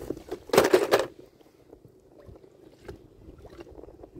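A spinning rod cast with a soft-plastic lure: one brief, loud swish about half a second in, followed by faint scattered clicks.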